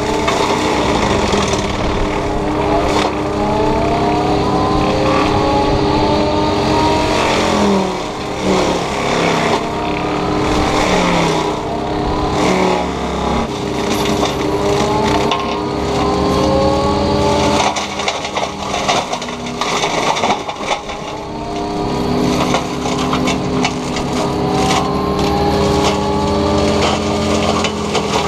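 Takeuchi TB290 excavator running a FAE mulching head while mulching brush, with the engine running steadily under load. Over it, a whine rises in pitch again and again, every couple of seconds.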